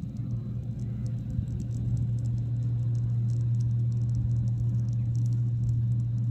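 Bitumen joint-sealing machine running with a steady low mechanical hum, growing a little louder about two seconds in.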